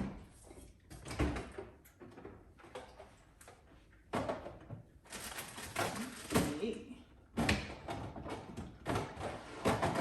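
Irregular knocks and clatter of containers and bins being handled and set onto refrigerator shelves, with a door or drawer bumping.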